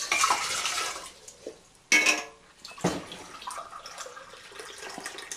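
Hot water poured from a copper kettle into a glass measuring cup, splashing, with a sharp clink of kitchenware about two seconds in and a lighter one just after.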